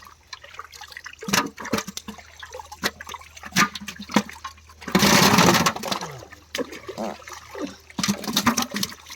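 Water splashing and sloshing with scattered knocks, and a loud rush of water about five seconds in.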